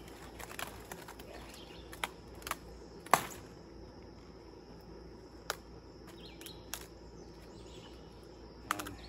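Cabbage leaves rustling and snapping as a cabbage head is picked by hand, with a few sharp cracks, the loudest a little after three seconds.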